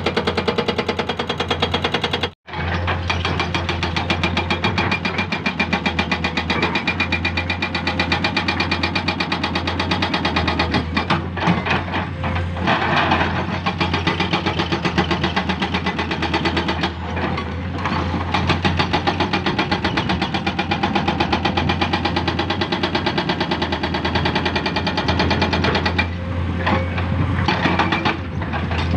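Diesel engine of a hydraulic excavator running steadily with a deep, fast-pulsing hum, cutting out for an instant about two seconds in. Several louder, harsher stretches come through over it.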